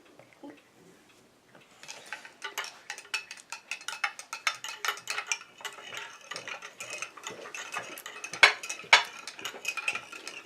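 A teaspoon stirring hot chocolate in a mug, clinking rapidly and repeatedly against the sides, starting about two seconds in.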